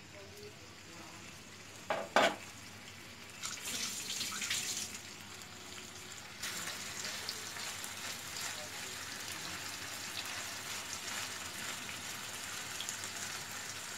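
Marinated paneer cubes sizzling and crackling in hot oil in a nonstick frying pan, the sizzle becoming louder and steady about six seconds in. Two sharp knocks about two seconds in.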